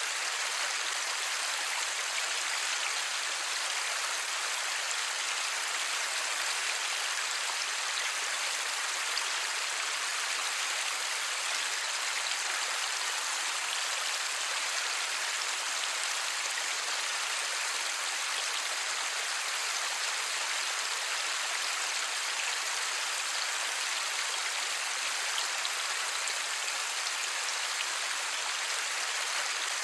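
Steady light rain falling: an even hiss with a fine patter of drops.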